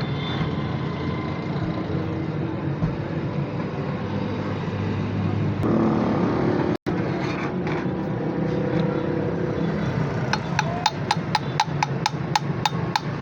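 Car engine running steadily, with a run of sharp, evenly spaced metallic clicks, about three or four a second, starting near the end.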